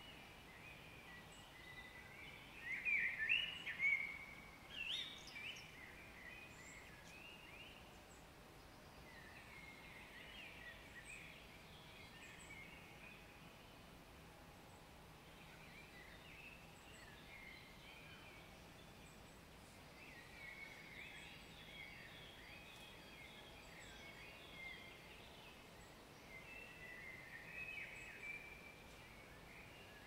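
Songbirds singing in short, repeated chirping phrases, loudest a few seconds in, then fainter songs carrying on over a quiet outdoor background.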